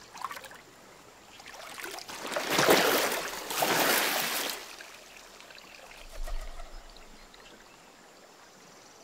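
River water splashing and sloshing as a man is immersed and raised back out in a baptism. A small splash comes just at the start, the loudest rush of water about two to four and a half seconds in, and a smaller slosh about six seconds in.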